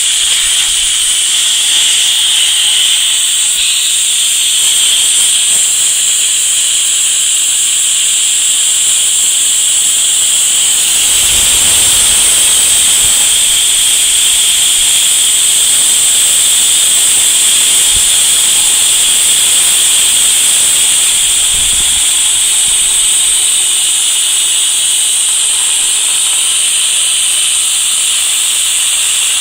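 A DIMET cold-spray gun blasting compressed air and metal powder at the block, a loud steady hiss. It grows fuller for about ten seconds midway.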